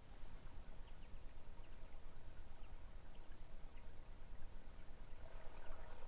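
Forest pond ambience: a steady low wash of outdoor noise with faint scattered ticks, like drips on water, and a brief high bird note about two seconds in.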